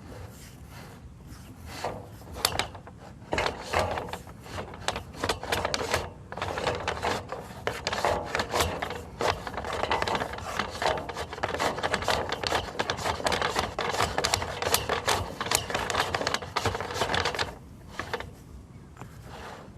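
Sewer inspection camera push cable being fed through the sewer line, rubbing and scraping with many quick irregular clicks. It starts about two seconds in and drops away near the end.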